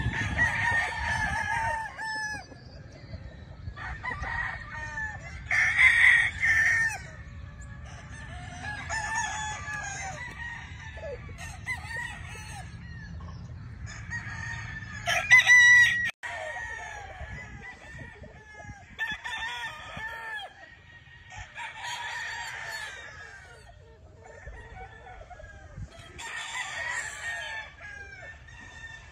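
Gamefowl roosters crowing one after another, with some calls overlapping, about every few seconds. A low background rumble runs under them and cuts off about halfway through.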